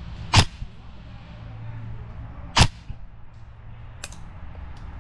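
Two sharp shots from an airsoft marksman (DMR) rifle, about two seconds apart, followed by a fainter crack about a second and a half later.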